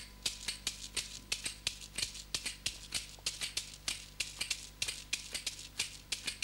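Hand percussion played as a quick, uneven run of dry rattling strokes, about four or five a second, accompanying a story about animals digging in sand.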